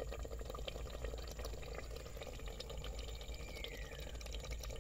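Thick spinach and mutton curry bubbling and popping as it simmers in an aluminium pot, a steady dense patter of small pops. A faint falling whistle sounds about three seconds in.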